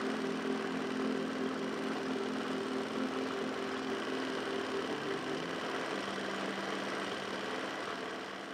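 Small engine running steadily, driving the tank transmission by chain; its pitch steps down about five seconds in as it slows.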